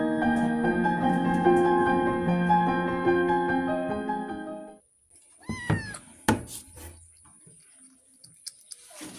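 Gentle piano background music that stops about halfway through, followed by one short cat meow and a few soft knocks and clicks.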